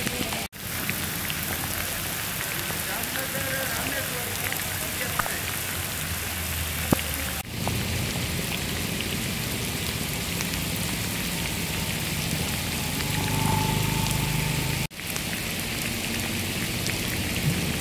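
Heavy monsoon rain pouring onto paved ground and standing water, a steady hiss broken by three brief gaps.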